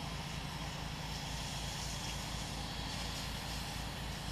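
Pressure washer's engine running steadily with a low, even pulsing, under the steady hiss of the rinse spray.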